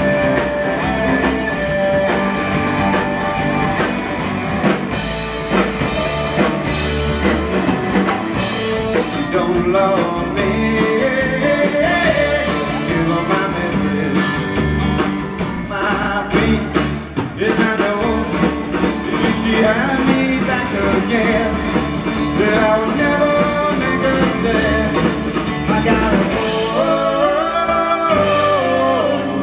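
Rock-and-roll music with guitar and a singing voice.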